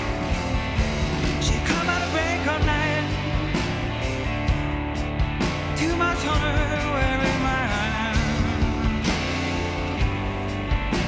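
Rock song with drums and guitar, a wavering sung or lead melody entering about two seconds in and again midway.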